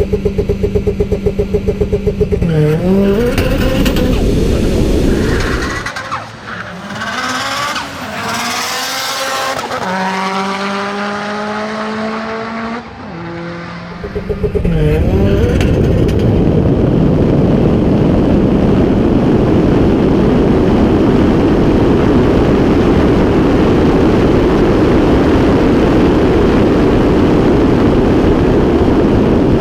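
A turbocharged four-cylinder Mitsubishi Lancer Evolution engine is held at high revs with brief dips, then accelerates through several gears with a rising pitch in each. Loud, steady rushing noise follows, which could be wind or road noise.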